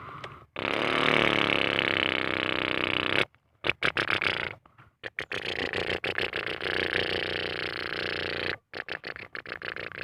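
Radio-controlled truck's motor running hard in on-off bursts as the truck sits bogged down. It runs one long spell first, then a series of short choppy bursts with its pitch shifting.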